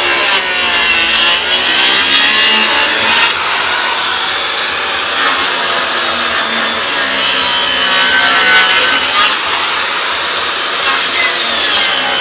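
Handheld circular saw running and cutting into a rotten wooden beam. Its pitch dips and rises as the blade bites into the decayed wood and eases off.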